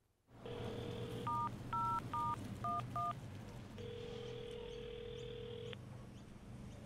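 Payphone line tones: a dial tone, then five keypad touch-tone beeps as a number is dialled, then a steady tone for about two seconds that stops. A low background hum runs underneath.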